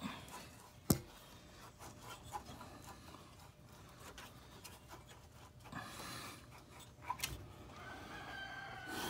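Hands working a car's exhaust pipe free of its rubber hanger: faint rubbing and scraping of rubber and metal, with a sharp metal click about a second in and two more clicks a little after seven seconds.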